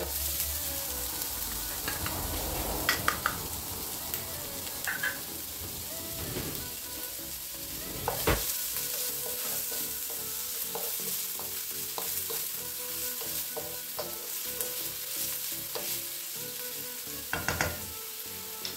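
Chopped onion sizzling as it fries in olive oil in a nonstick frying pan, stirred with a wooden spoon that knocks against the pan a few times.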